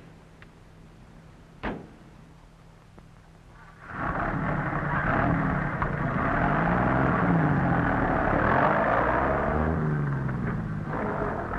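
A short thump about two seconds in over a low hum; then, about four seconds in, a 1930s truck engine starts running loudly, its pitch rising and falling as it revs, easing off near the end.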